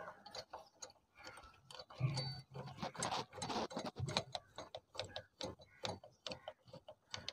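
Screwdriver working a bolt on a Honda CD 70 cylinder head: a string of light, irregular metal clicks and taps.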